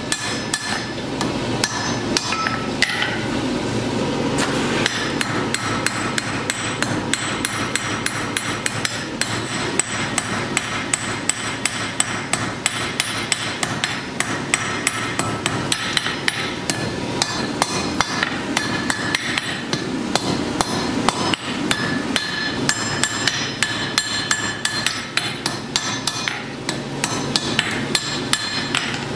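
Hand hammer striking hot steel on an anvil in a long run of sharp blows, each leaving a short metallic ring, over a steady background rush.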